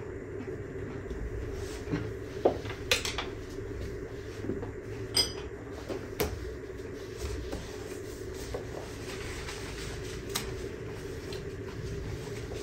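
Scattered clinks and knocks of small objects being taken from a shelf and set down, a few of them sharp and close together in the first half. A steady low hum runs underneath.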